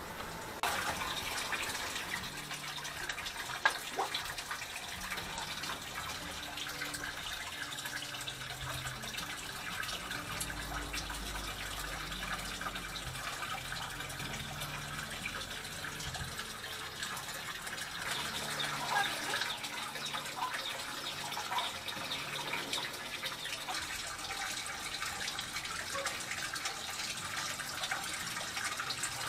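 Water running and splashing steadily at a pond, with scattered drips. It starts abruptly about a second in, and a single sharp click comes about four seconds in.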